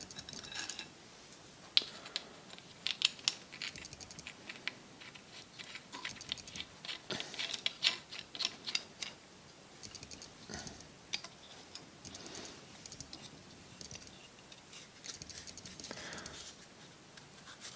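Small brass lamp parts clicking and clinking as they are threaded and fitted back onto the lamp rod by hand, in many short, irregular light clicks.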